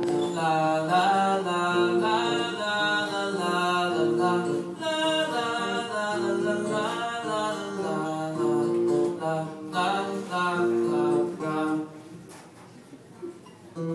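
Live solo song: a male voice singing a melody over a plucked acoustic guitar. It drops to a much quieter passage for the last couple of seconds.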